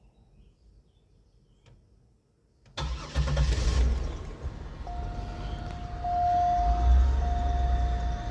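A 2000 Buick LeSabre's 3.8-litre V6 engine starting about three seconds in and then running, with a steady high whine from about five seconds in. The engine is setting a P0300 random-misfire code.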